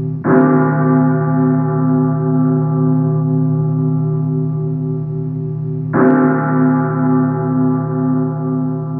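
A large church bell tolling, struck twice about six seconds apart. Each stroke rings on long, with a slow pulsing waver in its tone.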